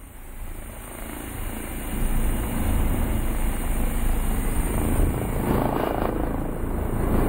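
Helicopter hovering: steady rotor and engine noise, a low rumble that grows louder about two seconds in.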